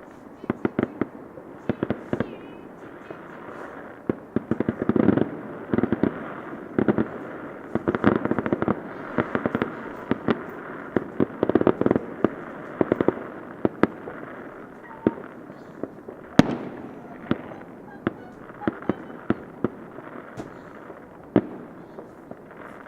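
Fireworks going off: rapid strings of bangs and crackles in several dense volleys, then more spaced-out single bangs.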